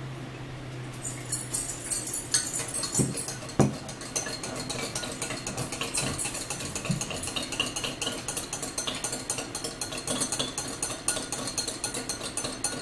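A spoon stirring a drink in a drinking glass: quick, continuous clinking against the glass, with a couple of heavier knocks about three seconds in.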